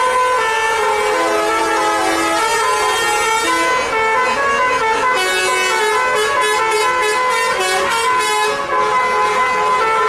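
Telolet multi-tone bus horn playing a melody: several horn tones sounding together and stepping from note to note, with a run of quick pulsed notes in the second half.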